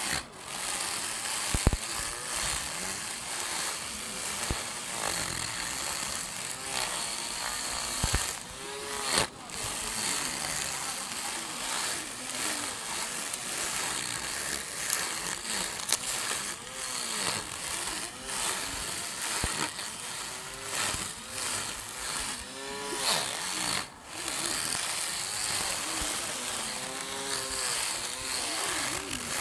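Small electric grass trimmer running, its spinning cutting head whirring and swishing as it cuts grass along a concrete curb edge. The sound runs steadily, dipping briefly a few times as the head moves.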